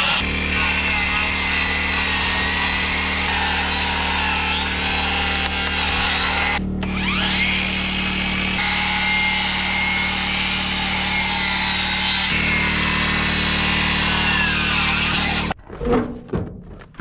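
Handheld circular saw running and cutting through boards with a steady motor whine. About six and a half seconds in it cuts out briefly and spins back up with a rising whine. Near the end the saw gives way to a few knocks and clatter at a steel shipping container door.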